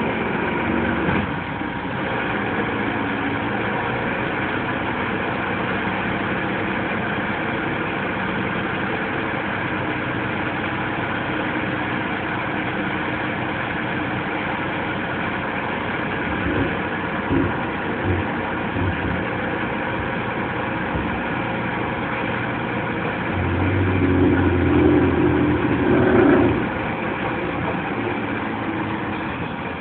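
A diesel hook-lift truck's engine runs steadily while its hydraulic arm hauls a loaded steel bin of oil palm fruit up onto the bed, with a few light knocks. The engine gets louder for a few seconds near the end as the bin comes onto the truck.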